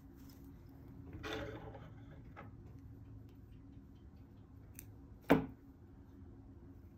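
Yarn rustling as it is drawn through the needlepoint canvas about a second in, then small embroidery scissors snipping the yarn, with a faint click and then one sharp click a little past five seconds in.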